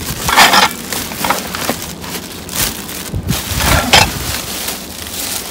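Plastic garbage bags crinkling and rustling as they are handled, in several loud bursts.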